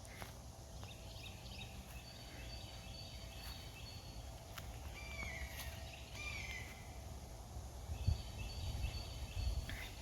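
Outdoor birdsong: small birds chirping in repeated high phrases, with a couple of lower down-slurred calls midway, over a low rumble on the microphone that grows louder near the end.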